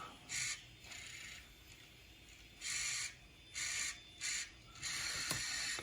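Sony MZ-RH1 Hi-MD MiniDisc transport whirring in about six short hissy bursts as the disc and laser sled seek between tracks while the skip control is pressed.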